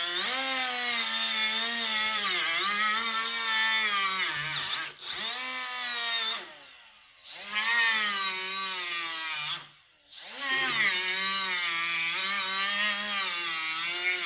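Milwaukee M12 cordless angle grinder with an abrasive cutoff wheel cutting into ATV tire rubber; its whine sags in pitch as the wheel bites and recovers. It stops and restarts three times, about 5, 7 and 10 seconds in.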